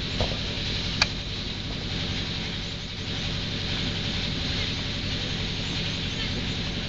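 Steady outdoor background noise with a faint low hum, broken by one sharp knock about a second in.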